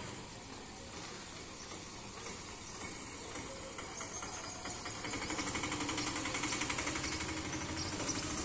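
An engine running with a rapid, regular beat, growing louder about five seconds in.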